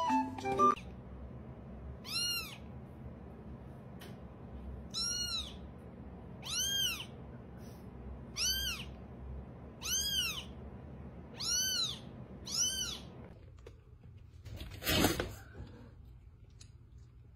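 Young kitten mewing: seven high-pitched calls, each rising and falling, a second or two apart. Near the end comes a short, loud rush of noise.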